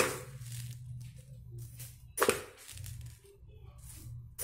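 A few sharp knocks and clicks from kitchen items being handled around a blender jar that is not running: one at the start, one about two seconds in and one at the end, over a faint low hum.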